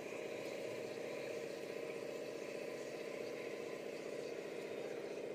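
Water poured from a cup into an aluminium pressure cooker of ghee-coated rice on an induction cooktop, over a steady hum and sizzle from the hot cooker and cooktop.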